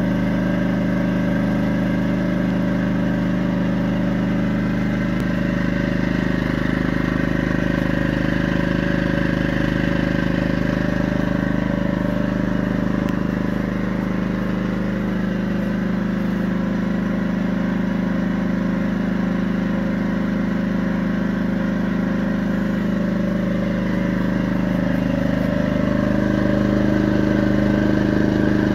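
Yamaha EF1000 portable generator's small petrol engine running steadily at constant speed, with a slight shift in its note and a small rise in level near the end.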